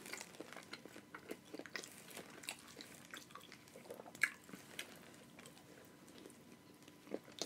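Close-miked chewing of a boiled seafood-boil potato: soft, irregular wet mouth clicks and smacks, with a slightly sharper bite about four seconds in.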